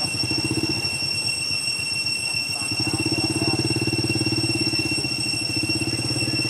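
An engine idling with a steady low, pulsing rumble that grows louder about three seconds in.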